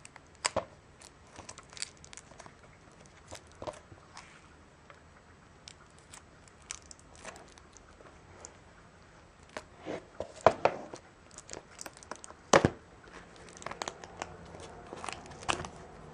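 Fingernails picking at and tearing the plastic shrink-wrap on a DVD box set: scattered crinkles, scratches and clicks, with the two sharpest snaps about ten and twelve and a half seconds in.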